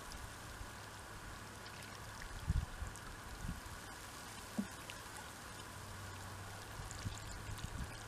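Calm sea water lapping and trickling softly among shore rocks, faint, with a few soft low bumps.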